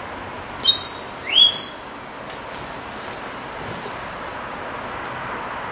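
Male narcissus flycatcher singing one short phrase about a second in: a few clear, high whistled notes and then a slurred whistle that rises and falls, over a steady background hiss.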